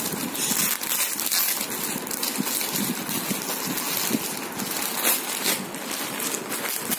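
White plastic courier bag crinkling and rustling in irregular crackles as hands handle it and open it.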